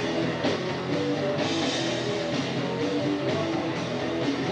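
Rock band playing an instrumental passage between vocal lines: electric guitars over bass and a drum kit.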